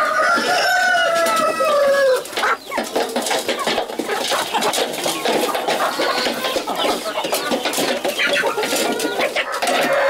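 Flock of domestic chickens clucking and squawking as they crowd in to eat freshly spread feed. A rooster crows once at the start, one long call falling in pitch over about two seconds.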